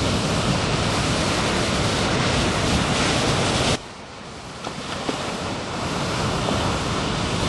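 Steady rushing noise of breaking ocean surf with wind on the microphone. It drops suddenly about halfway through, then gradually builds back up.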